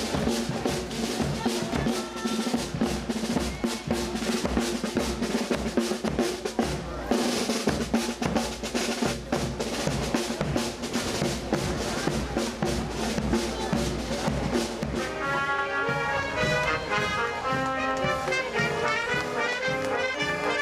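Parade marching band playing: snare and bass drums keep a steady marching beat, with a bright crash about seven seconds in, and trumpets and trombones come in with a melody about fifteen seconds in.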